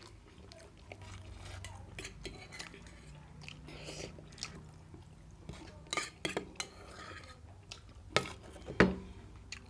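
Cutlery clinking and scraping on a plate. Scattered light clicks build to two louder knocks close together near the end.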